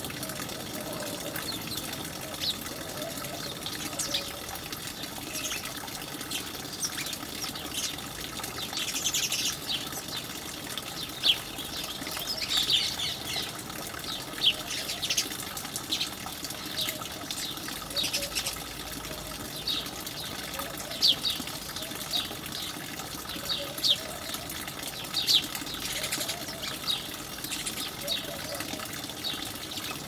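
House sparrows chirping: short, sharp cheeps at irregular intervals, with busier chattering about a third of the way in, over a steady background hiss.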